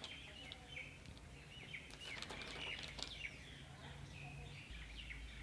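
Faint bird chirps in the background: short, high, falling notes scattered through the pause, with a few light clicks.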